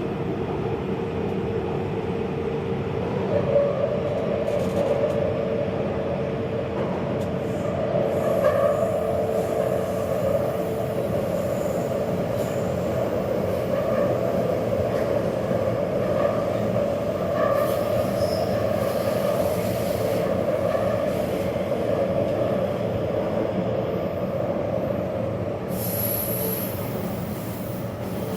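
Taipei Metro train running along the track: a steady rumble with a held whine from the wheels on the rails.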